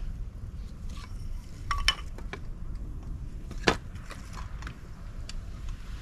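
Wind rumbling on the microphone, with several sharp clinks and knocks scattered through it, the loudest a little past the middle.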